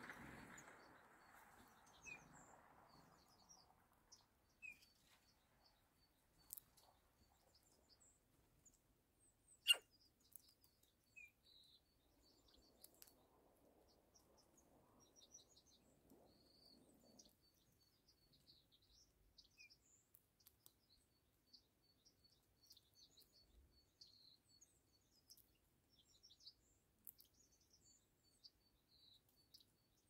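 Faint, scattered chirps and tweets of small birds over near silence. A soft rushing noise fades out over the first few seconds, and a single sharp click comes about ten seconds in.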